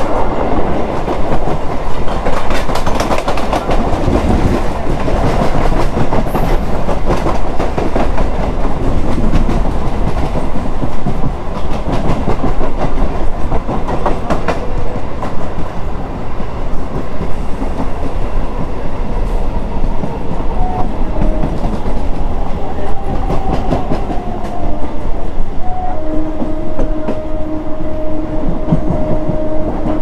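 Electric multiple unit (EMU) suburban train heard from on board, running at speed, with a dense rumble and the wheels clattering over rail joints. A steady humming tone joins about four seconds before the end.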